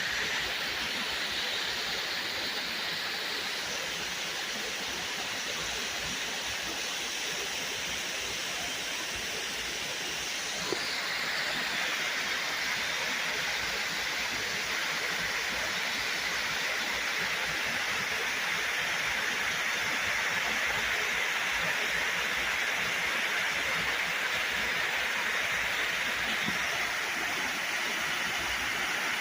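Running water rushing steadily, an even hiss with no pauses, like a small waterfall or fast stream. A single brief tick comes about a third of the way in.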